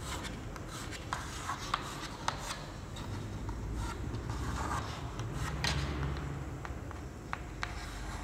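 Chalk on a chalkboard as digits are written: a quick, irregular run of short taps and clicks with brief scratchy strokes between them.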